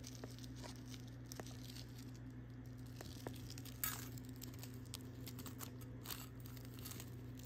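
Faint clicks and rustles of a cardboard jewelry gift box and its insert being handled as a bracelet is worked out of it, with one slightly louder rustle about four seconds in. A steady low hum runs underneath.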